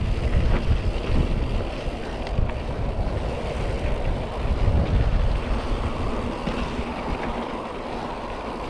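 Wind buffeting the microphone of a mountain biker's camera, over the rumble of bike tyres rolling down a dirt trail; the noise eases a little in the last few seconds.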